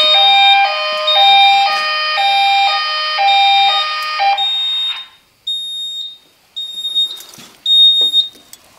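Edwards (EST) fire alarm speaker sounding a loud hi-lo alarm tone that alternates between two pitches about twice a second, cutting off after about four seconds. A high-pitched beep then repeats four times, about once a second, with a few light clicks.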